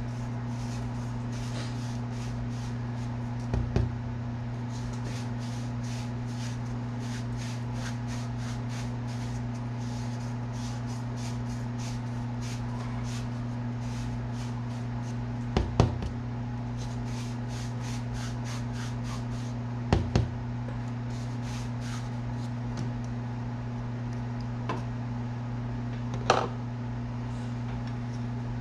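A hand reamer rasping inside the bore of a fishing-rod handle grip, twisted in quick strokes about three times a second to enlarge the hole to fit the blank. A few louder knocks break in, and a steady low hum sits underneath.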